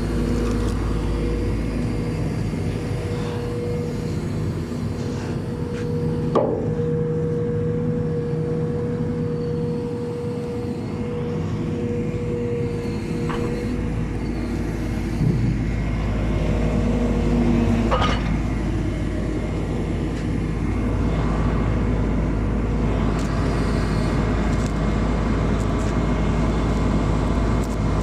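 A backhoe's engine running steadily under work, with a steady whine over it that stops after about 17 seconds and a few sharp metallic knocks, about 6, 13 and 18 seconds in.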